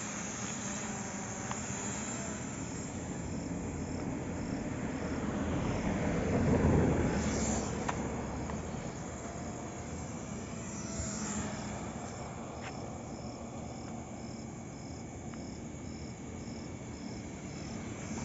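Small LED-lit quadcopter drone's propellers buzzing steadily in flight, louder around six or seven seconds in as it passes close. Crickets chirp in an even rhythm behind it.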